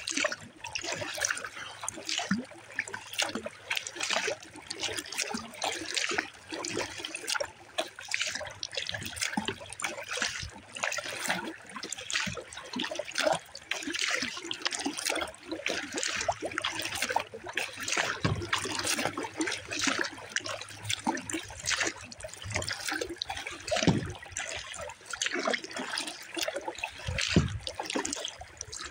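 Water trickling and splashing along the hull of a 10-foot Pelican Argo 100XR kayak as it is paddled across a lake, in a continuous stream of small splashes that swell and ease about once a second.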